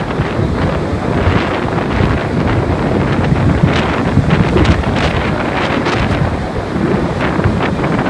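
Typhoon-force wind gusting and buffeting the microphone in a heavy low rumble, with driving rain on the wet street; the gusts are strongest around the middle.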